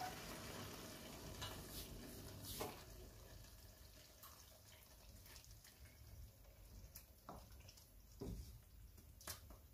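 Faint sizzling and bubbling of aloo matar qeema (minced-meat curry) in a pot, fading over the first few seconds as the stove has just been turned off. A few soft knocks of the wooden spatula against the pot are heard.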